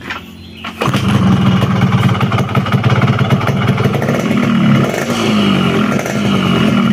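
Yamaha RX-King's single-cylinder two-stroke engine starting up about a second in and running steadily, its pitch rising and falling a few times in the second half as the throttle is blipped. It is being run to test the freshly refitted and bled two-stroke oil pump line.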